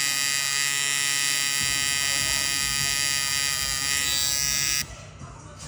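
Tattoo machine buzzing steadily as its needle works ink into skin, then cutting off suddenly near the end.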